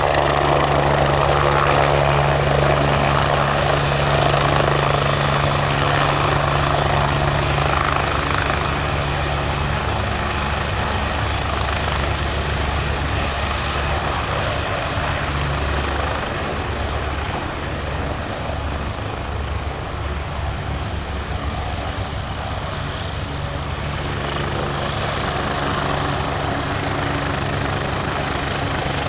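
Turbine helicopter running with a steady rotor beat and a thin high turbine whine. It is loudest for the first several seconds, then eases off a little.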